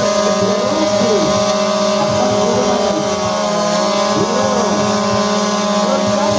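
A scooter engine held at high, steady revs while the rear tyre spins against the tarmac in a burnout. A second engine note rises and falls over it.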